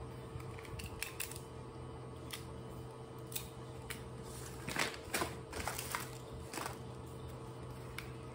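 Scattered light clicks and rustling as a metal stapler and a cardboard box of staples are handled, with a louder run of clicks and rustle a little past the middle. A steady low hum runs underneath.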